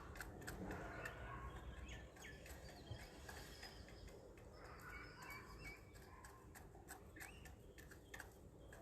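Faint birds chirping in short bits, with many scattered light clicks.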